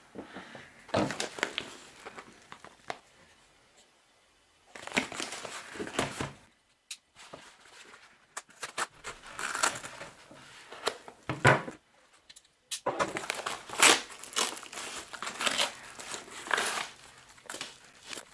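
A padded mailer envelope being handled, slit open with a pocket knife and torn apart: irregular bursts of crinkling and tearing, with a couple of short pauses.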